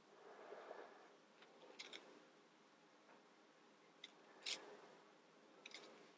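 Faint, sharp clicks of small plastic model-kit pieces being handled and pressed together, about five over a few seconds, the loudest a little past the middle, with a soft rustle of handling near the start.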